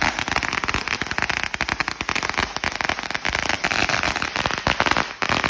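A long firecracker roll going off in a continuous rapid chain of sharp bangs and crackles, many pops a second with no pause.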